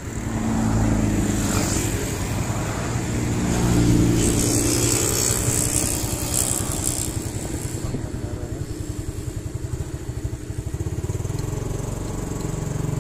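Motorcycle engine pulling away and picking up speed over the first few seconds, then running steadily at cruising speed. A rushing hiss rides over it from about four to seven seconds in.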